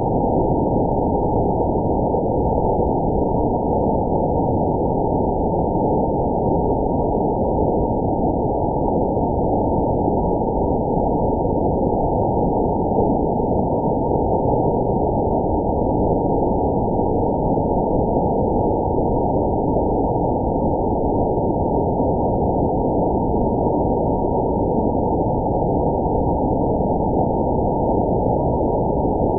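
Waterfall rushing, slowed down in slow-motion playback into a steady, muffled rush with nothing in it above about 1 kHz.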